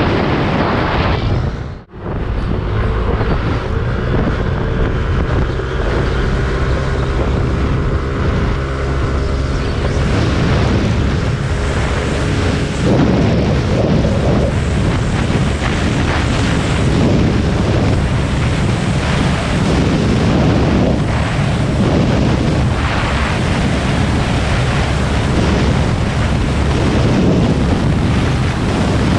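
Wind buffeting the microphone on a Yamaha Aerox 155 VVA scooter ridden at speed, with the single-cylinder engine and CVT running under it. The level drops out briefly about two seconds in.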